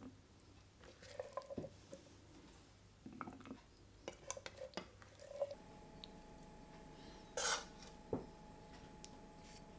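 A spoon tapping and scraping on a ceramic plate as chickpea stew is spooned onto it: faint, scattered clinks and scrapes. There is one louder brushing scrape about seven and a half seconds in and a sharp click just after it.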